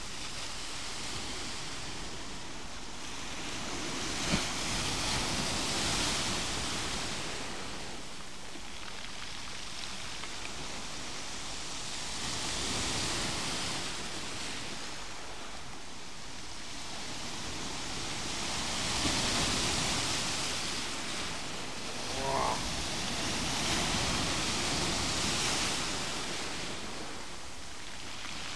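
Sea waves breaking over rocks at the shoreline and washing back in a foamy hiss, surging four times, about every six to seven seconds.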